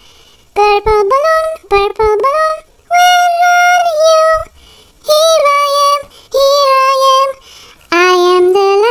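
Latex balloon squeaking as fingers rub and squeeze its inflated skin: a run of high squeals in short phrases, some held level for about a second, others sliding up or down, with brief pauses between.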